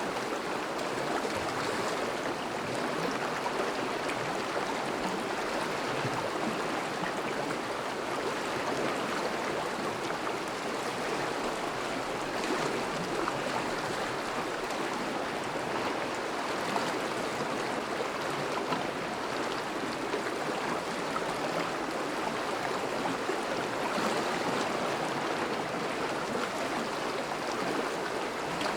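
Thawing river flowing: a steady, even rush of moving water.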